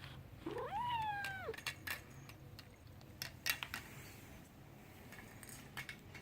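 A kitten meows once, a call of about a second that rises quickly and then slides slowly down. A few light clicks and taps follow, the sharpest one about halfway through.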